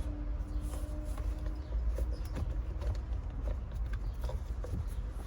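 Faint, irregular clicks and taps of an Allen wrench working a screw in a screen mount bracket, over a steady low rumble.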